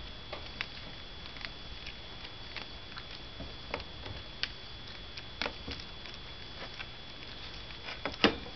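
Toy poodle puppy's claws clicking and pattering on the plastic floor tray of its crate as it walks about, in scattered, irregular taps, with one sharper knock near the end.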